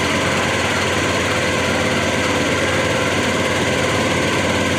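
Boat engine running steadily, heard from on board the moving boat: a constant, unchanging drone.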